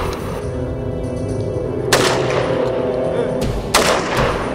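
Two live-fire gunshots about two seconds apart, one near the middle and one near the end, over background music with held tones.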